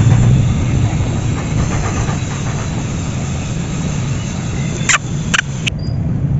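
Steady low rumbling outdoor background noise, with three sharp clicks close together about five seconds in.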